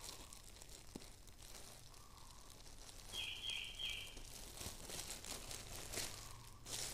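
Thin plastic wrapping crinkling and rustling as it is handled and pulled off a packaged bag, faint at first and busier and louder from about halfway through.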